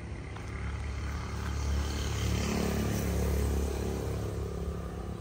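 A motor vehicle passing by, its engine rumble and tyre hiss swelling to a peak about three seconds in and then fading.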